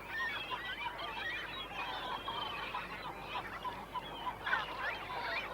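A seabird nesting colony with many birds calling at once: a dense, continuous chorus of short, overlapping cries.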